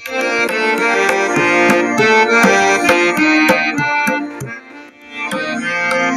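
Music with a melody and drum strikes playing loud through a home theater's two stereo satellite speakers, with the subwoofer's bass turned off. The speakers are working properly again after their KA2206 amplifier IC was replaced. The music dips briefly about five seconds in.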